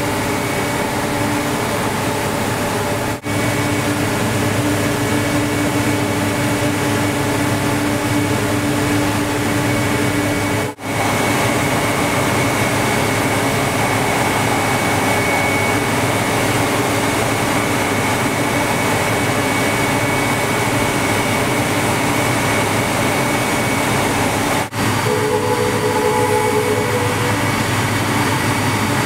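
Steady drone of a rail-mounted subway snow-clearing machine's engine and rotary snow blower, heard inside its cab as it travels along the tracks; the sound drops out for an instant three times. Near the end the vehicle's horn sounds briefly.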